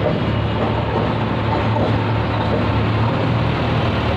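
Tractor diesel engine idling steadily, a low even hum.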